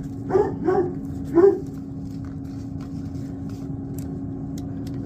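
A dog barks three times in quick succession in the first second and a half, over a steady machine hum.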